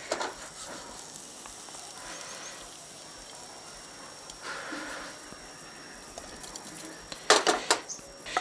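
Metal spatula scraping a frying pan as cooked food is scraped out onto a plate, over a faint steady hiss, with a few sharp clinks about a second before the end.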